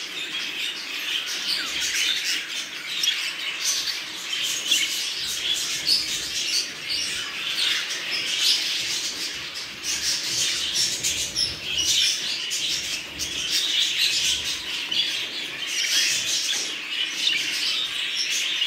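A roomful of budgerigars chattering and chirping together: a dense, unbroken warbling twitter with many overlapping calls.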